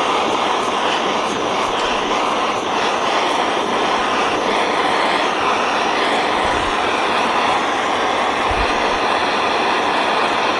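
Handheld gas torch burning steadily with a constant rushing hiss as its flame heats a brass plate to melt tinning fluid into a coat of solder.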